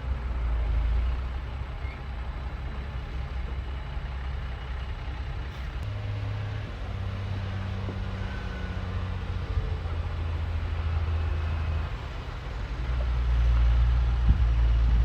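Shantui bulldozer's diesel engine running with a low drone that shifts in level as it works, growing louder near the end.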